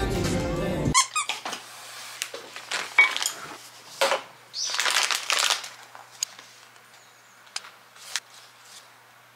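Background music that cuts off about a second in, then tabletop meal handling: scattered clicks and taps of a glass jar, plate and chopsticks, a squeak, and a plastic food pouch crinkling for about a second near the middle.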